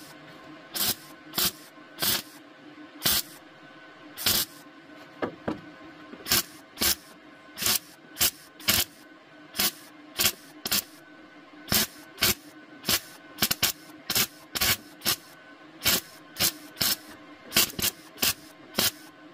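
MIG welder laying short tack welds on car body sheet metal: dozens of brief crackling bursts of the arc, roughly one or two a second, over the welder's steady hum. The tacks fill the drilled-out spot-weld holes along a rusty rear wheel-arch lip.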